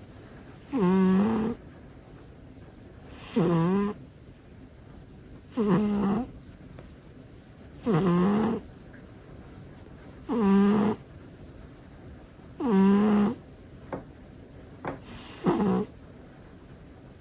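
Domestic cat snoring in its sleep: seven regular pitched snores, one about every two and a half seconds, each rising and falling in pitch.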